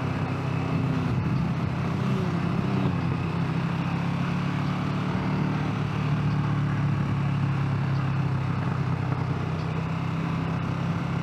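Motorcycle engine running at a steady cruising speed, with wind and road noise from the ride.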